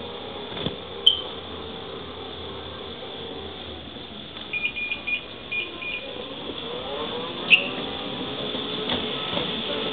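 Electric mobility scooter running with a steady hum. A quick run of short high beeps comes about halfway through, and there are two sharp clicks, one near the start and one near the end.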